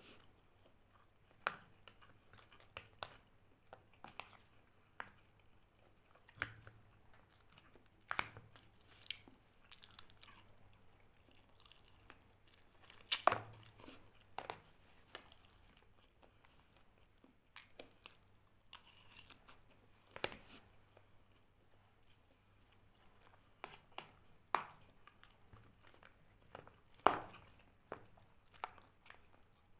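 A person chewing and biting food close to the microphone, with irregular crunchy crackles between quieter chewing.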